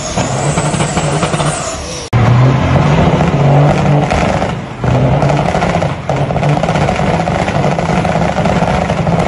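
Semi-truck diesel engines held at high revs during burnouts. The sound cuts abruptly about two seconds in from one truck to another, louder one, whose note dips briefly twice.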